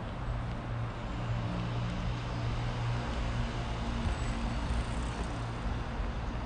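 Steady rumble of road traffic on the elevated expressway overhead: a low hum with a few steady low tones over an even hiss of tyres.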